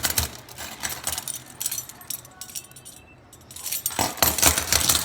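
Metal handcuffs and shackles clinking and jangling as they are handled, busiest at the start and again near the end, with a quieter lull about halfway through.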